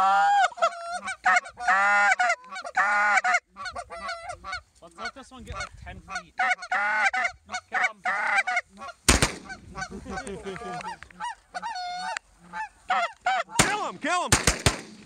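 Canada goose honks and clucks, loud and close, coming in quick runs with short breaks between them. There is a sharp bang about nine seconds in and several more near the end.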